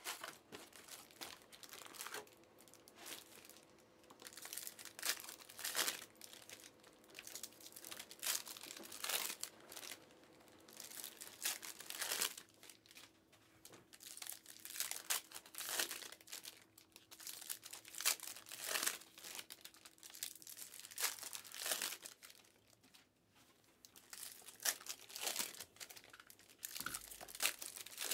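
Plastic wrapping on boxes of trading cards being crinkled and torn open by hand: irregular crackling and ripping in clusters, with a brief lull near the end.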